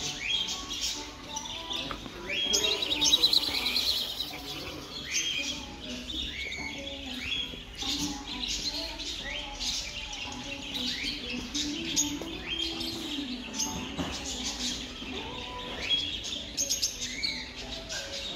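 Many caged finches, zebra finches among them, calling at once: a steady mix of short, overlapping chirps, with a burst of dense chirping about three seconds in.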